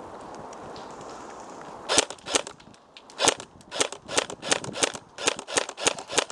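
Airsoft guns firing: about two seconds in, a string of sharp single shots begins, fired rapidly one after another at roughly three to four a second and running on to the end.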